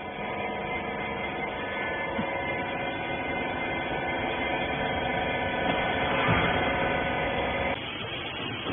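Baler machinery, most likely its electric hydraulic pump motor, running with a steady hum that cuts off suddenly near the end.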